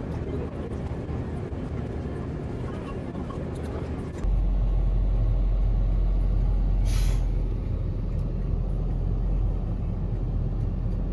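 Steady low rumble of a vehicle, starting suddenly about four seconds in, with one short hiss of air about seven seconds in.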